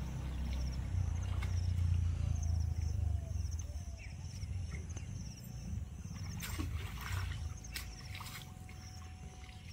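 Water splashing and dripping as a wet cast net is lifted and gathered in a pond, with a few sharper splashes about two-thirds of the way in, over a low rumble that fades after the first few seconds. A high chirp repeats steadily in the background.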